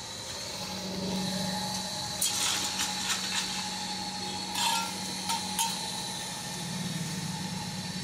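Forge blower running steadily under a glowing coal fire, with a scatter of sharp crackles and clicks between about two and six seconds in.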